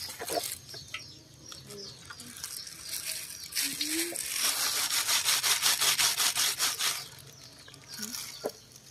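Breadfruit dough balls sizzling and crackling as they deep-fry in a wok of hot oil. The frying sound starts about halfway through and lasts about three seconds.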